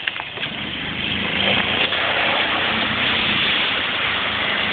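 Lifted golf cart's small engine running as it plows through a mud hole, growing louder from about a second in, with the tires churning and splashing through muddy water. A few sharp knocks right at the start.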